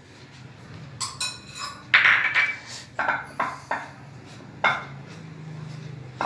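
A metal spoon clinking and scraping against a small glass bowl as ghee is spooned out, followed by a few sharp knocks and scrapes against the glass dish as the flour mixture is worked by hand.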